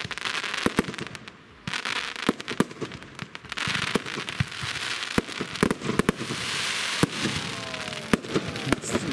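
Fireworks display going off: a quick, irregular run of sharp bangs from bursting shells with crackling hiss between them, easing off briefly about a second in.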